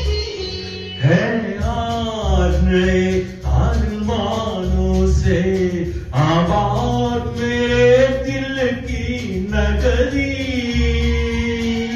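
A man singing sustained, bending phrases into a corded handheld microphone over recorded backing music with a steady bass pulse.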